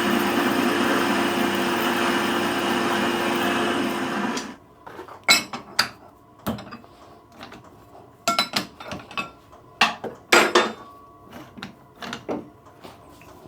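Metal lathe running steadily, shutting off about four and a half seconds in. Then a scatter of sharp metal clinks and knocks as steel tools and parts are handled.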